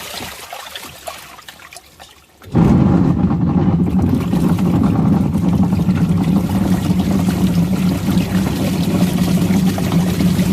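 Water churning and splashing in a washing machine tub over a steady motor hum. The sound dies down over the first two seconds, then starts again abruptly about two and a half seconds in and runs steadily.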